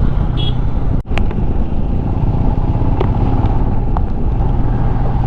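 Royal Enfield Himalayan's single-cylinder engine running steadily while riding, with wind and road noise. There is a brief break in the sound about a second in.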